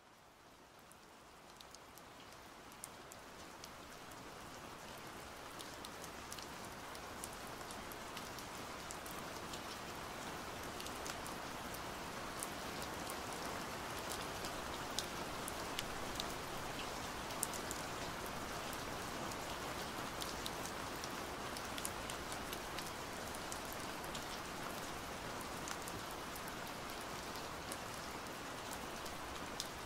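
Steady hiss of rain with many small drops ticking through it, fading in over the first several seconds and then holding steady.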